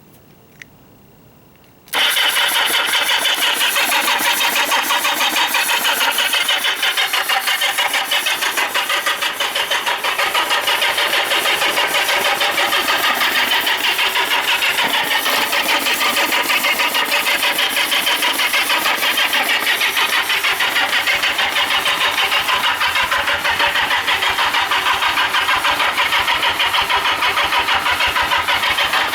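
Kawasaki Z750 Spectre's four-cylinder engine being cranked over by its starter motor without firing: a single click, then about two seconds in a sudden, loud, steady churning with a fast, even pulse that keeps going.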